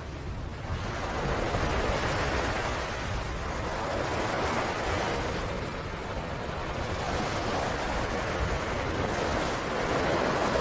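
Ocean surf breaking and washing up the beach, swelling and easing every few seconds, with a low wind rumble on the microphone.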